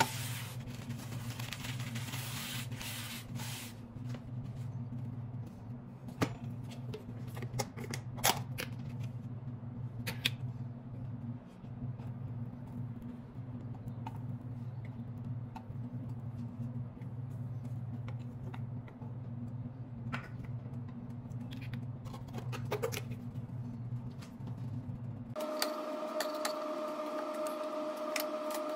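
A paper towel rubbed around the inside of a metal frying pan for the first few seconds, then scattered clicks and taps of a knife scooping butter spread from a tub and knocking it into the pan, over a steady low hum. The hum changes to a higher steady tone near the end.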